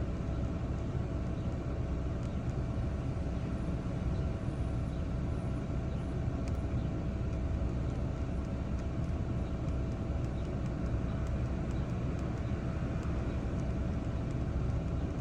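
Toyota V6 engine running steadily with the engine misfiring on bank 1, which the mechanic traces to a stuck bank 1 sensor 1 air-fuel ratio sensor.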